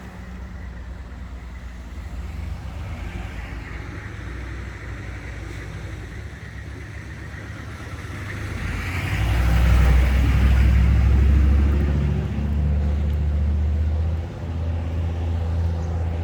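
Motor vehicle engine running with a steady low hum, growing much louder about nine seconds in and staying loud, with a brief dip near the end.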